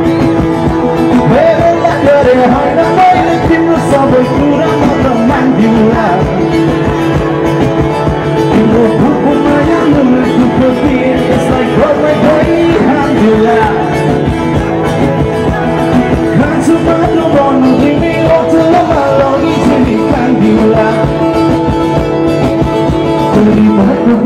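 Live band playing a rock song, with guitar and a male voice singing over it, loud and continuous.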